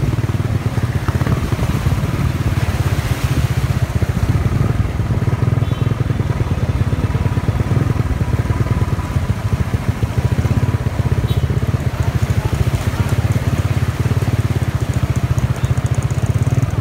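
Motorcycle engine running steadily at low revs, heard close up from the rider's seat, as the bike moves slowly through floodwater.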